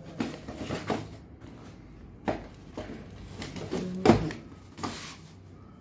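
A cardboard shipping box being opened and handled by hand: flaps bending and rustling and a boxed item pulled out, with a string of short knocks. The loudest knock comes about four seconds in.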